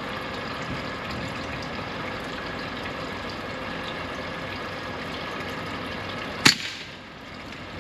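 A single sharp shot from an AEA HP SS .22 semi-automatic air rifle about six and a half seconds in, over the steady hum of a boat's idling engine and water.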